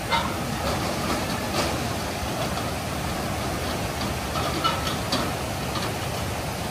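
Steady rush of flowing stream water, with a few faint short chirps over it.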